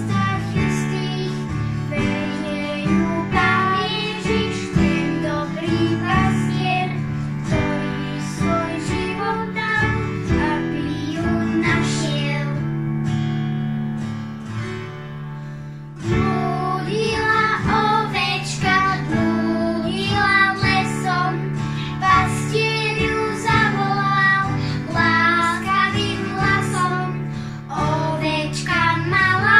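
Children singing a Slovak children's worship song to acoustic guitar and piano. About halfway through, the voices stop for a few seconds while the instruments play on, then the singing comes back.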